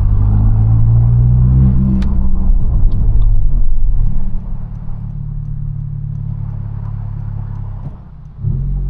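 2022 Honda Civic Si's turbocharged 1.5-litre four-cylinder engine pulling hard uphill in gear for about four seconds, then easing off to a steadier, quieter drone. Near the end it dips briefly and then comes back up louder.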